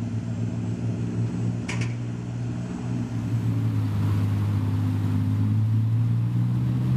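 Bridge erection boat's engine running steadily, a low drone that grows a little stronger after about four seconds, with one brief sharp click about two seconds in.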